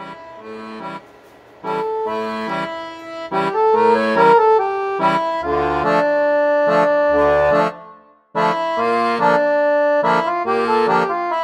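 Instrumental outro music, a melody over chords. It swells up about a second and a half in, stops briefly about eight seconds in, then starts again.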